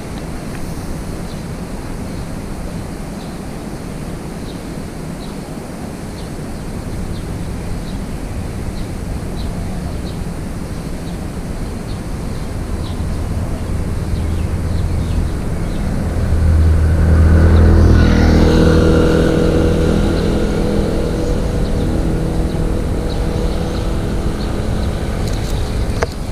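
A motor vehicle engine approaching and passing, swelling to its loudest about two thirds of the way in and then fading, over a steady low outdoor rumble.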